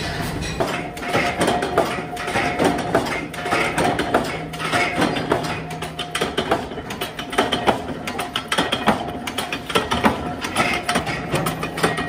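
Factory machinery clattering with rapid, irregular clicks and knocks over a steady low hum.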